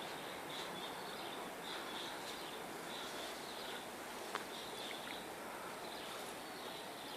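Steady outdoor background hiss with a small creature's high chirp repeating about once or twice a second, and one faint click about four seconds in.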